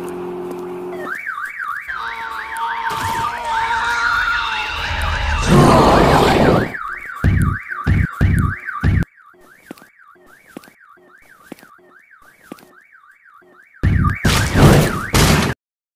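Car alarm wailing, its pitch sweeping quickly up and down over and over, starting about a second in. A loud rumbling crash comes around the middle, and another loud burst near the end.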